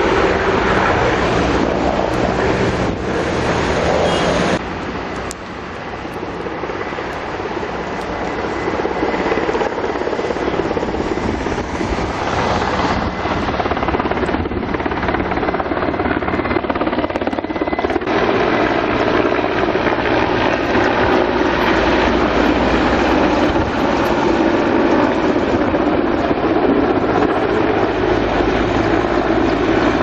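Steady loud engine noise of firefighting aircraft working over a burning pine forest. It drops suddenly about four and a half seconds in, then a continuous rumble of engines and wind builds back and holds steady.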